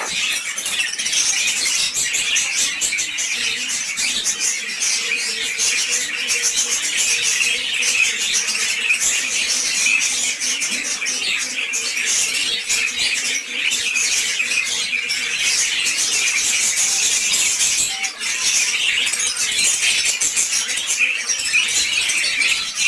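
Dense, continuous high-pitched chirping of many birds.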